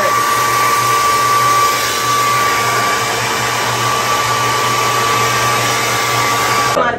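Handheld hair dryer blowing at close range: a steady rush of air with a thin, constant whine over it, cutting off abruptly near the end.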